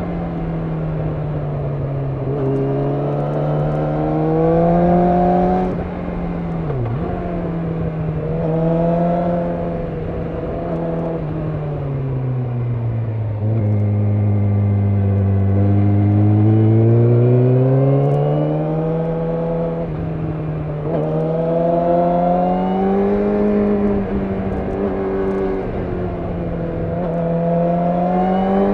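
Yamaha YZF-R6 inline-four engine running under way, its revs rising and falling with gear changes, sudden drops in pitch at each shift. Near the middle the revs sink low for a few seconds, then climb again.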